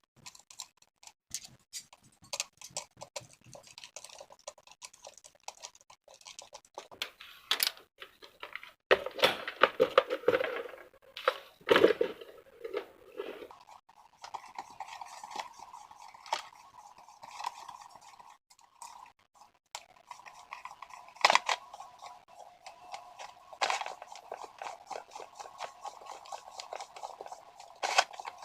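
Table fan parts being handled and fitted together: a run of small plastic clicks and knocks, with a louder stretch of rustling and crinkling about a third of the way in.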